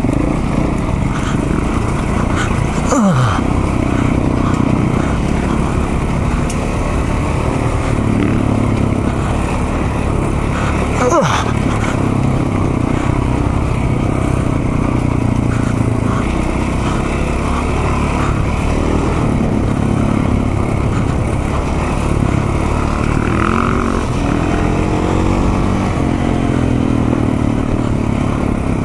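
On-board sound of a KTM single-cylinder dirt motorcycle engine running on a trail under changing throttle: a steady drone, the revs dropping sharply twice in the first half and climbing again near the end.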